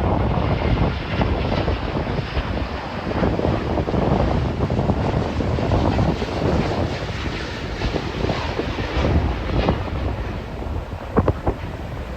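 Airbus A350-900 jet on landing approach, its Rolls-Royce Trent XWB engines heard as a steady rushing roar, with heavy wind buffeting on the microphone.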